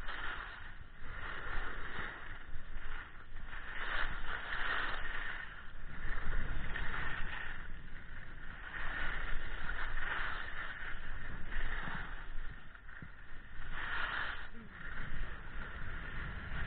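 Skis scraping over packed snow through a run of turns, the hiss swelling and fading every second or two, over a steady low rumble of wind on the microphone.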